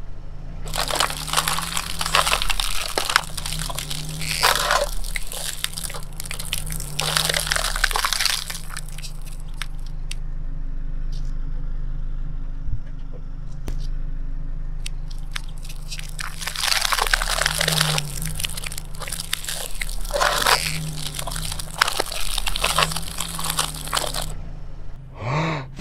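A car tyre rolling slowly over a stack of thin bowls, crunching and crackling them flat, with the car's engine running low underneath. The crunching comes in two long spells with a quieter stretch between.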